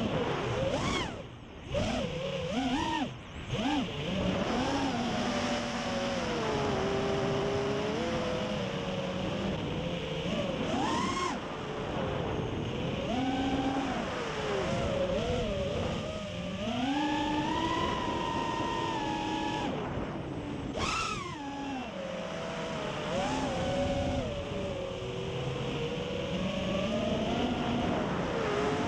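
FPV quadcopter's four BrotherHobby Returner 2207 2700kv brushless motors and propellers whining, heard from the onboard camera. The pitch rises and falls constantly with throttle, and it cuts out briefly twice, about one and a half and three seconds in, as the throttle is chopped.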